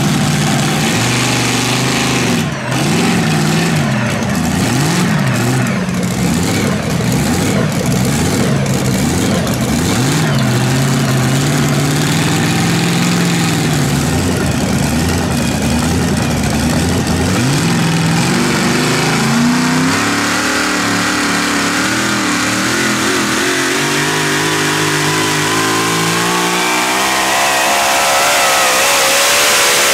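Pulling vehicle's engine running hard at high revs, its pitch rising and falling, then climbing steadily over the last few seconds.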